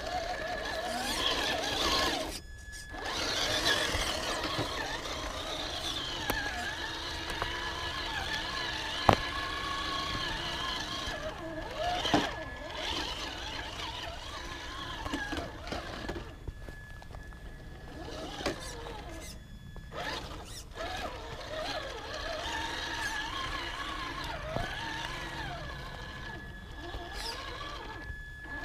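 Traxxas TRX-4 Sport RC crawler on the trail: its electric motor and geared drivetrain whine, rising and falling in pitch with the throttle, over a steady high tone. A couple of sharp clicks come about nine and twelve seconds in, and the sound drops out briefly several times.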